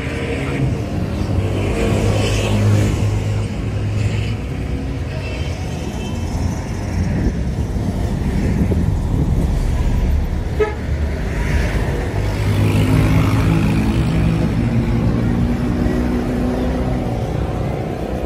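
Motor vehicle traffic: engines running steadily, with a deeper engine hum swelling twice, about a second in and again past the middle.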